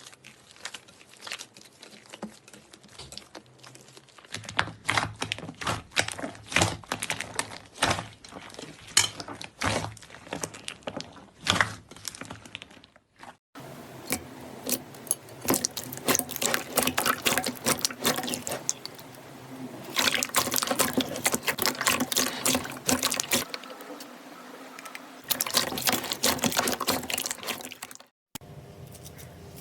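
Slime being squeezed, pressed and stretched by hand: wet, sticky clicks and pops of air pockets in quick, irregular runs.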